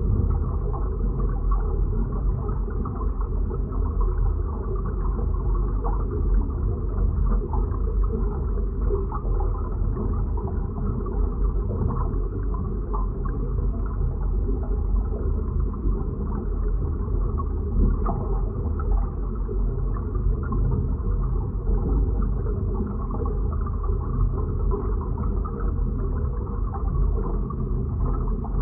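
Sound-designed deep-sea or space-station ambience: a steady, deep, dull rumble with faint creaks and crackles scattered through it, nothing bright or high in it.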